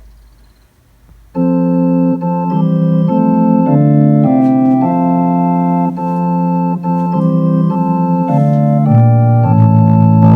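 Organ playing a steady sequence of held chords, hymn-like, coming in about a second and a half in after a brief quiet.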